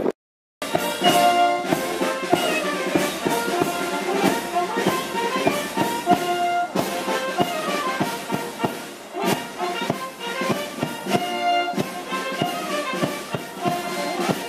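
Brass band playing, held brass notes over steady drum beats, starting abruptly about half a second in after a brief silence.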